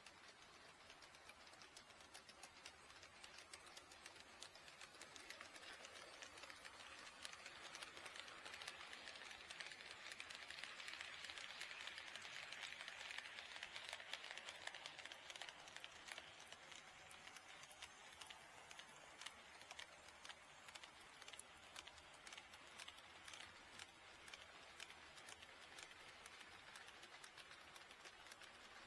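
Faint running of an HO scale model train on the track, a light whirr with fine rapid clicking. It swells to its loudest about halfway through and then fades away as the train passes.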